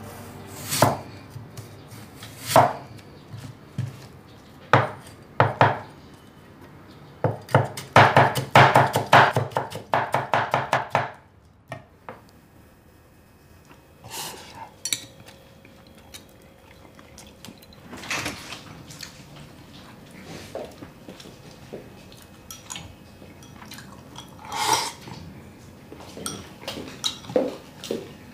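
Kitchen clatter of sharp knocks and clinks. A quick run of rapid chopping-like strokes comes about eight to eleven seconds in, then fainter scattered clicks.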